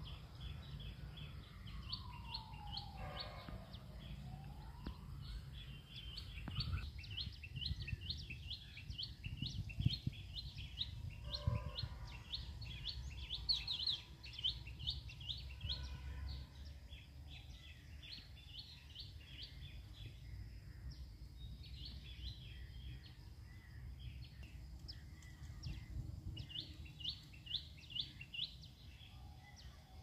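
Birds calling in long runs of short, high, rapidly repeated chirps, thickest through the middle of the stretch and again near the end. In the first few seconds a long whistle glides down and then back up. A steady low rumble runs underneath.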